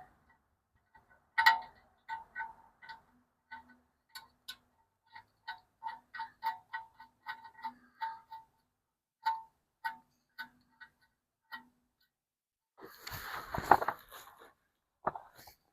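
Ratchet wrench clicking in short irregular strokes, tightening the excavator's oil drain plug back in. Near the end a short scraping rattle and a single clank of metal.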